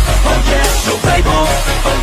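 Hip hop backing track with a heavy bass beat, between rapped lines.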